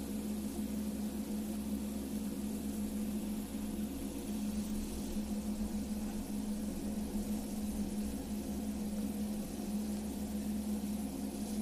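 A small motor running with a steady, unchanging hum.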